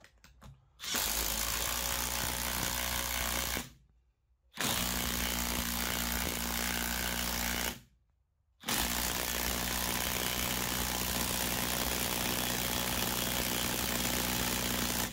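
Parkside Performance PDSSAP 20-Li B2 brushless impact driver hammering a screw into a hard old wooden stump in three long trigger pulls, with short pauses between them, each ending abruptly. It struggles with the load and stalls.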